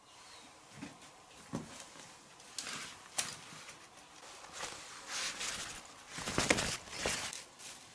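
A fabric folding keep net being opened and handled, rustling and scraping in irregular bursts, loudest about six and a half seconds in.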